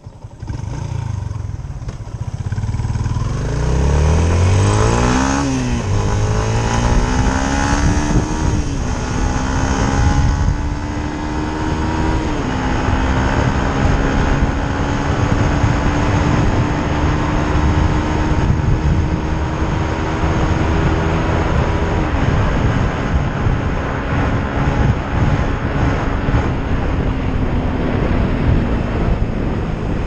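Yamaha motorcycle engine pulling away and shifting up through the gears, its note rising and dropping about three times in the first dozen seconds. It then cruises at a steady pitch and eases off a little over twenty seconds in, with steady wind rush on the microphone.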